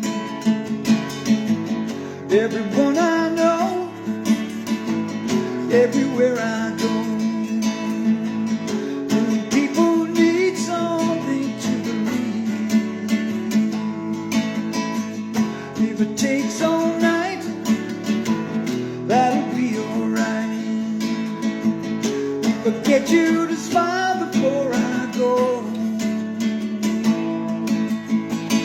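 Rock song instrumental passage: a strummed acoustic guitar rhythm under a lead line whose notes slide up and down in pitch, with no clear sung words.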